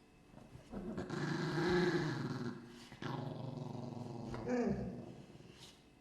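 Dogs growling in a room: one long growl starting about a second in, then a second growl from about three seconds in that ends near five seconds with a brief glide in pitch.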